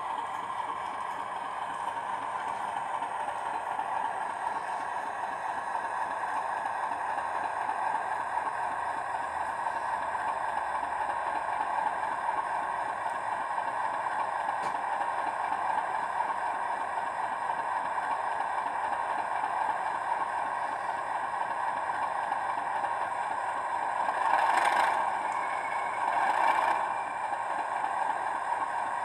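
Sound-fitted model of a Class 37 diesel locomotive playing its diesel engine sound through the model's small speaker: a steady drone as it runs in with its coaches and stands at the platform. Two brief, louder sounds come near the end.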